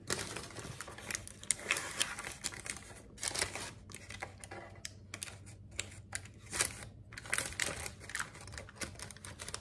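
Baking parchment crinkling and rustling in irregular short crackles as dough is pressed into the lined pan and the knife works along its edge.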